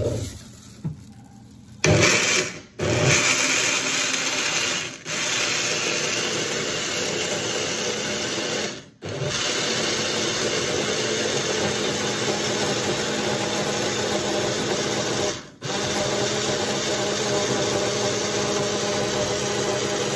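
Personal cup blender running, its motor whirring steadily as it blends soaked sea moss and water into a gel. It starts about two seconds in and cuts out briefly several times as the cup is pressed and released on the base.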